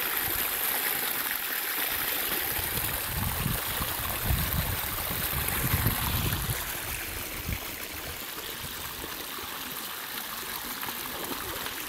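Steady rushing of a stream's flowing water, with some low rumbling surges in the middle.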